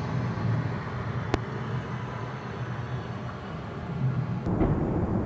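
Outdoor urban field recording: a steady low rumble, with one sharp click just over a second in and a sudden, deeper swell of the rumble near the end.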